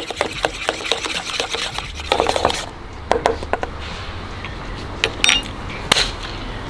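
A metal spoon stirring a thick, chunky dip in a stainless steel bowl, clinking and scraping against the sides in quick, busy strokes for the first two or three seconds, then only a few scattered clicks.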